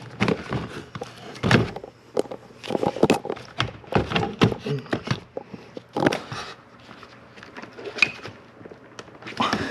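Irregular clicks, taps and knocks of hands working parts in and out of a car door during a door handle replacement: hard plastic and metal pieces being handled and fitted.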